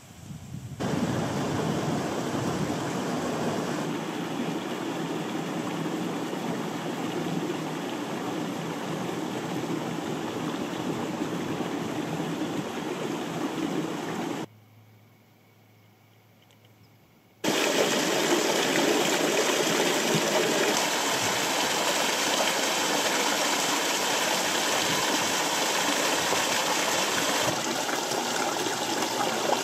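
A small mountain stream pouring down over rocks in short falls: a steady rushing and splashing. It drops away to near silence for about three seconds near the middle, then comes back a little louder.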